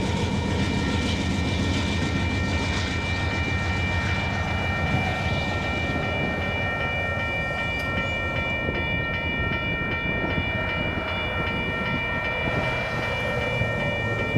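Railroad grade-crossing warning bell ringing steadily over the low rumble of a freight train's rear distributed-power locomotives moving away.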